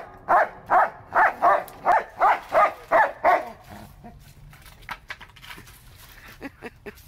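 German Shepherd barking in a quick run of about nine barks, roughly three a second, which stops about three and a half seconds in. A few light clicks and scrapes follow as he pushes a wooden board across the concrete with his nose.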